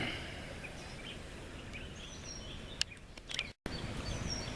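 Outdoor ambience: a steady low background noise with faint bird chirps. A few sharp clicks come near the middle, and the sound cuts out to silence for a moment about three and a half seconds in.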